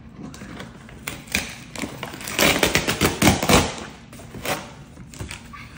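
Cardboard shipping box being pried and ripped open by hand: scattered taps and scrapes, then a dense run of cardboard crackling and tearing for about a second and a half around the middle, then a few more taps.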